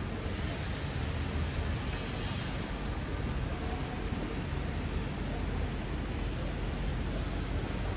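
Steady city street traffic noise: a continuous low rumble of cars passing, with no single event standing out.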